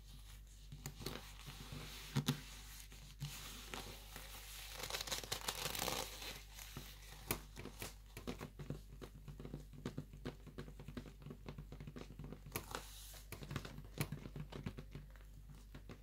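Black leather gloves rubbing and pressing against each other: a run of small crackling clicks, with a longer, louder rustle about five seconds in.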